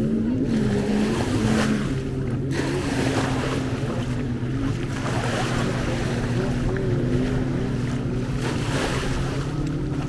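A motorboat engine running steadily, heard over waves washing on the beach.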